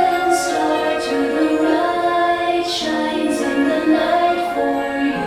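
Music with singing voices: a melody of held notes, sung over an accompaniment.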